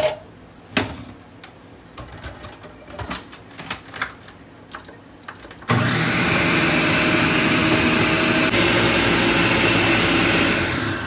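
A few light clicks and knocks, then about halfway in a countertop blender starts abruptly and runs steadily, blending a thin liquid mix of evaporated milk, water and sugar. It winds down near the end.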